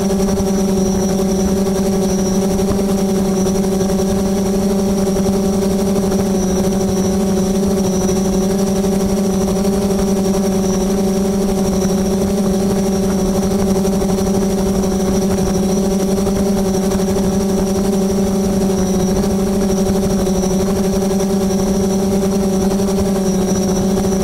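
Multirotor drone hovering, its propellers giving a steady, unchanging hum.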